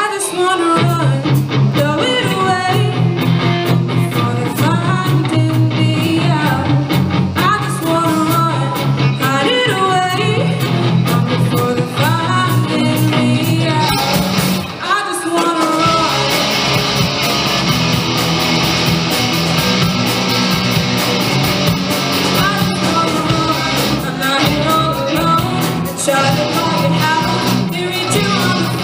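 A live rock band playing: electric guitars, bass and drums, with a lead singer. About fifteen seconds in the band drops out for a moment, then comes back fuller with the cymbals crashing steadily.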